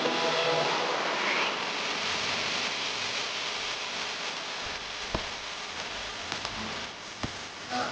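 A steady hiss of noise without any tone, easing slightly in level, with two short sharp knocks, about five and seven seconds in.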